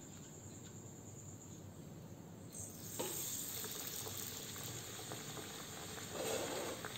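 A breadcrumb-coated snack piece goes into hot oil in a kadai, and the oil breaks into a steady sizzle of deep frying about two and a half seconds in. Before that there is only a faint hiss from the oil.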